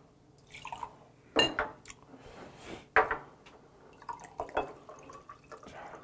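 Bottled beer poured into a glass to mix somaek (beer with soju), with the clink and knock of glass bottles and glasses being handled; two sharp glass knocks stand out, about a second and a half in and at three seconds.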